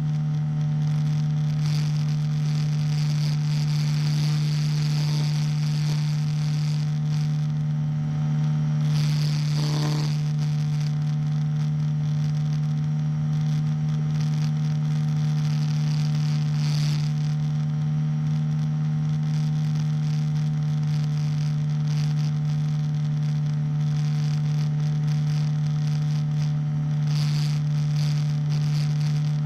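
Engine of a powered hang glider running steadily in flight, a constant drone over a hiss of rushing air.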